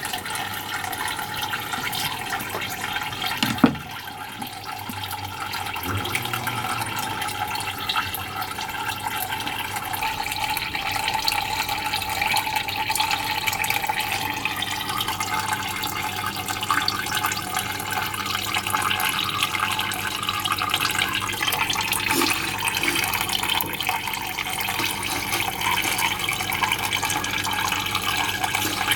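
Water running steadily, with one sharp knock about three and a half seconds in.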